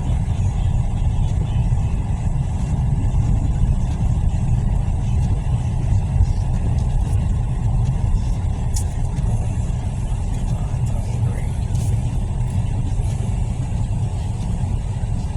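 Steady low rumble of a vehicle driving, heard from inside: engine and tyre noise on the road, with a few faint ticks.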